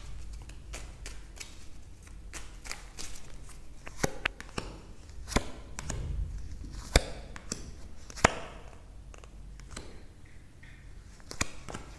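A tarot deck being shuffled in the hands and cards dealt out: a string of quick card clicks and taps, with a few louder snaps scattered through.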